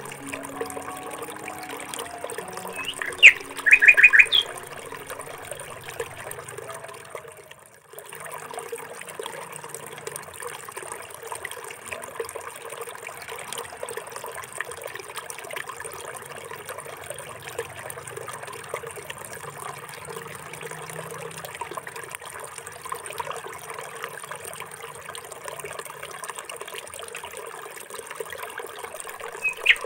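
A bird gives a few short, loud chirps about three to four seconds in. After a brief drop near eight seconds, a steady trickling, water-like hiss runs on.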